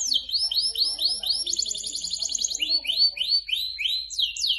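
Domestic canary in full song: a fast run of repeated chirps that changes figure every second or so, from falling notes to rising notes, then a fast trill, then rising and falling notes again.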